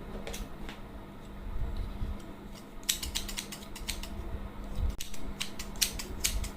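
Silicone pop-it fidget toy having its bubbles pushed through, making small sharp pops: a couple at first, then quick runs of them about three seconds in and again from about five to six seconds in.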